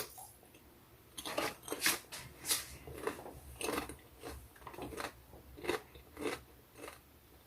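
Crunchy chewing of a sea salt PopCorners popped-corn chip: about a dozen short, sharp crunches, roughly two a second, starting about a second in.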